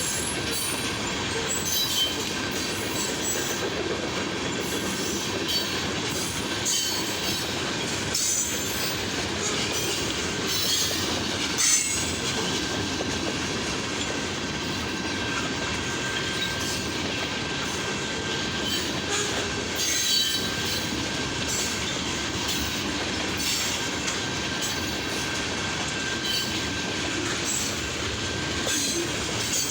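Freight train cars rolling past, a steady rumble with irregular wheel clicks and clanks over the rail joints and a thin, steady high wheel squeal.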